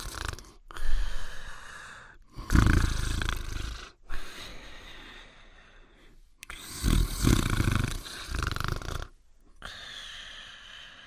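Cartoon dog snoring in a slow cycle: loud, rumbling snores alternate with softer, whistling out-breaths, about three rounds.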